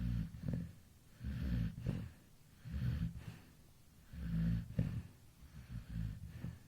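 Sleeping golden retriever snoring in a steady rhythm: about five low snores, one every second and a half or so.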